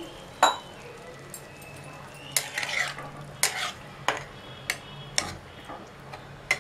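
A spatula stirring watery prawn curry in a non-stick pan, scraping and knocking against the pan in short strokes about once a second, over a faint steady hum.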